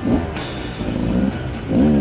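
Enduro dirt bike engine revving up and down in short throttle bursts at low speed, over a steady low rumble, loudest near the end.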